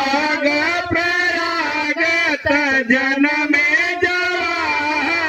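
A voice singing a sohar, a Bhojpuri folk birth song, in long drawn-out, gliding notes without a break.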